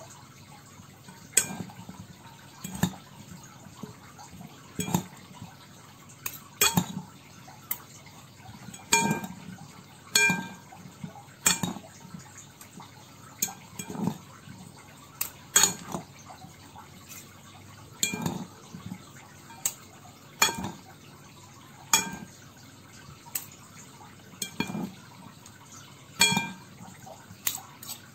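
Two metal spoons tossing salad in a large bowl, clinking against the bowl and each other in irregular strokes, about one every one to two seconds, some with a short ring.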